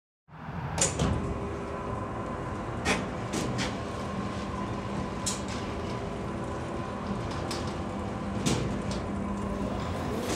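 Indoor room ambience: a steady low background hum with about eight short, sharp knocks and clicks scattered through it.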